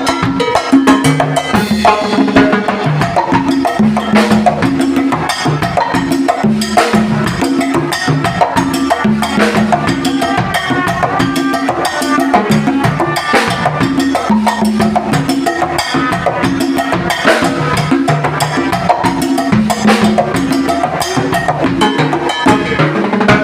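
Congas played by hand, unamplified, in a dense, continuous Afro-Cuban pattern. Slaps alternate with ringing open tones at several different pitches from the differently tuned drumheads.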